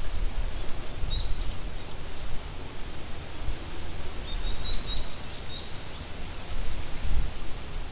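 Rural outdoor ambience: an uneven low rumble of wind on the microphone, with a small bird chirping in short high rising notes, a few about a second in and a cluster around the middle.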